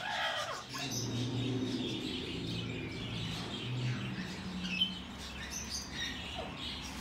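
Green-cheeked conures giving short, scattered chirps, with a brief squawk near the start. A low steady hum runs underneath for much of the time.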